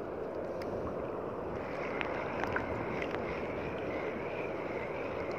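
Steady wash of sea water with wind on the microphone, and a few faint ticks.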